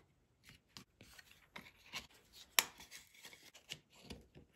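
Light clicks, taps and rubbing as a small picture frame and its backing board are handled and fitted together on a wooden tabletop, with one sharper click about two and a half seconds in.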